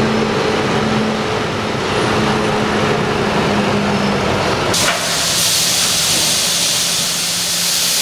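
Fendt tractor's diesel engine running low and steady as it pulls a grain trailer. About five seconds in, the engine gives way abruptly to the steady hiss of grain pouring out of the trailer.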